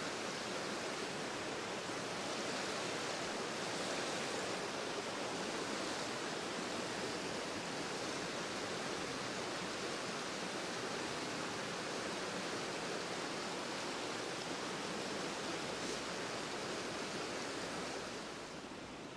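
Shallow river rapids rushing steadily over rocks, dropping a little in level just before the end.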